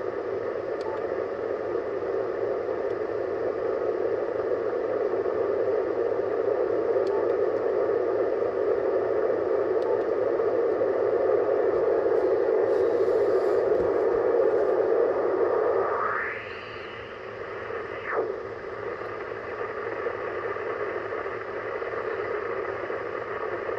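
Yaesu FT-710 HF transceiver's speaker giving a steady rushing static on the 10-metre band, noise that the owner puts down to spikes from his solar inverter. About two-thirds of the way through, the static narrows and drops in level.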